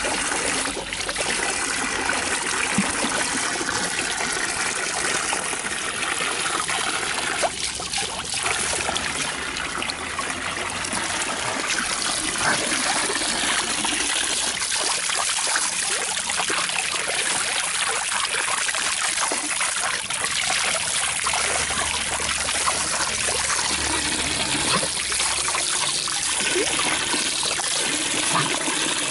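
Steady running, trickling water.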